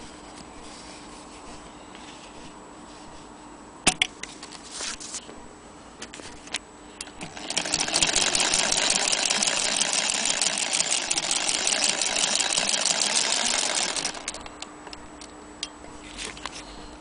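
Antique Jones hand-crank sewing machine stitching through denim: a fast, even mechanical clatter of the needle and feed, starting about seven seconds in and lasting about six seconds. A few sharp clicks and knocks of handling the cloth and machine come before it.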